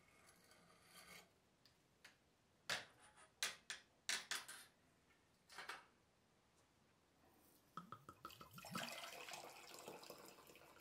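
Rusted steel of a bayonet scabbard cracking and clicking in a few sharp snaps as pliers break away a corroded strip. About eight seconds in there is a quick run of small clinks, then clear liquid is poured from a glass flask into a glass beaker.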